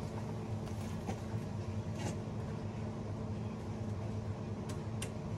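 A steady low machine hum, with a few light clicks and taps of tools being handled.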